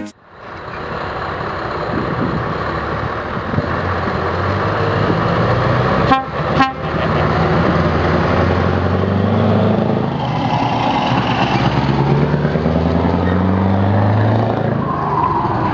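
Scania articulated truck's diesel engine running as it pulls away, with two short horn toots about six seconds in. The engine note then climbs in pitch as the truck accelerates away.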